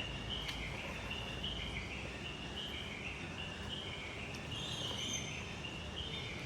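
Quiet background ambience: a steady hiss with faint, repeated high-pitched chirping throughout.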